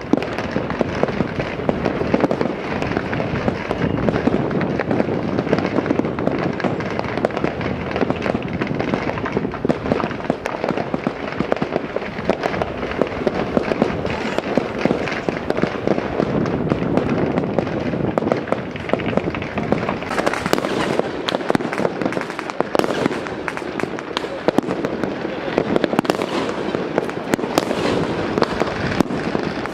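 Many fireworks and firecrackers going off at once across a town: a dense, unbroken crackle of overlapping pops and bangs. It grows sharper and crisper about twenty seconds in.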